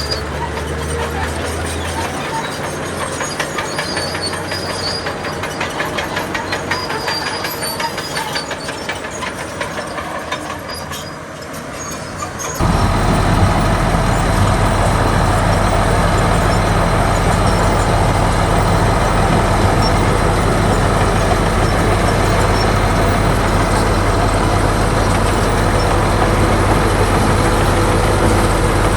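Heavy diesel earthmoving machinery at work: fast metallic clanking and rattling over an engine for about the first twelve seconds, then a sudden change to a louder, steady diesel engine running with a deep hum.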